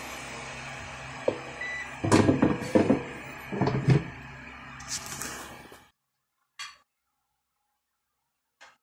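Air fryer basket drawer being handled: several knocks and clatters of the basket over a steady hum. About six seconds in, the sound cuts off suddenly to silence, broken only by two faint clicks.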